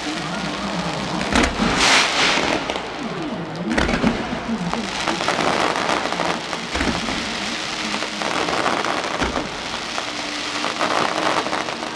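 Fireworks going off: a continuous crackle of burning sparks, with several low booms from bursts scattered through it.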